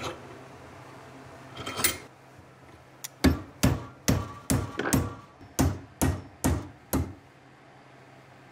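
A short scrape, then a steel strip clamped in a bench vise being struck about nine times, roughly two blows a second, each with a short metallic ring, as its bends are shaped.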